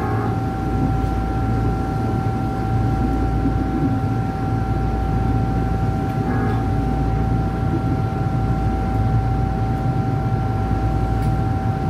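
Tokyu 8500-series electric commuter train running, heard from the cab: a steady rumble with a constant high whine held at one pitch. There is a short burst of rushing noise about six and a half seconds in.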